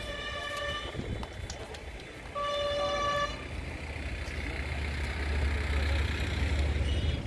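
A vehicle horn sounds twice, a steady held honk that ends under a second in and a second honk of about a second starting two and a half seconds in. After that a broad rumbling noise builds up and grows louder.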